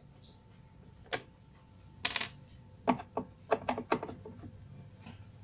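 Sharp clicks and knocks from hand work at the plastic back cover of a CRT television: a single click, a short scraping rustle, then a quick run of five or so clicks.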